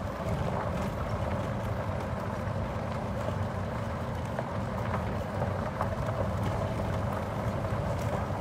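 Golf cart driving along a dirt road: a steady, low running noise from the moving cart.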